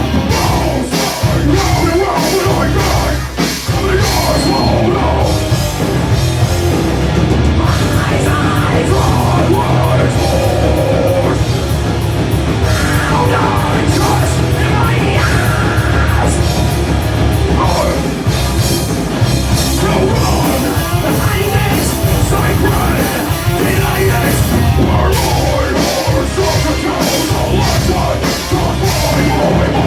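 Loud live rock band playing, with drums, amplified instruments and some vocals.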